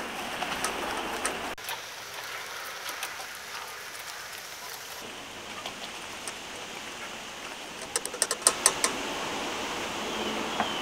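Melted-butter mop sauce sizzling and simmering in a stainless saucepan on a gas burner, with a whisk stirring through it. About eight seconds in comes a quick run of taps, the whisk knocking against the pan.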